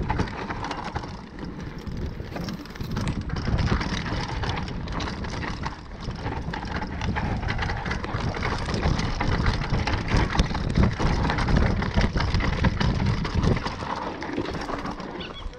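Mountain bike descending a dry dirt trail at speed: tyres rolling over loose dirt with a constant rattle of small knocks from the bike over bumps, and wind buffeting the microphone.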